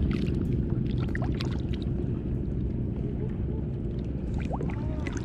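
Steady low wind rumble on the microphone, with small water splashes and lapping where a caught fish is held in the sea against the side of a kayak.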